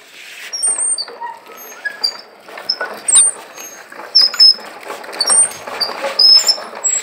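Child's pedal toy tractor towing a small trolley, its hard wheels rolling and rattling over rough paving, with scattered short high-pitched squeaks throughout.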